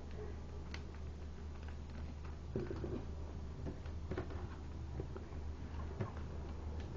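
Sheet of origami paper being folded and creased by hand: scattered soft crackles and rustles, over a steady low hum.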